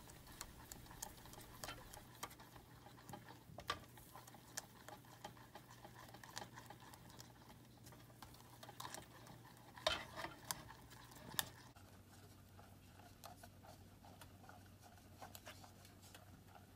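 Silicone spatula stirring crushed pineapple and sugar in a stainless steel saucepan as it heats: faint, irregular scrapes and light taps against the pan, with a few louder knocks about ten seconds in.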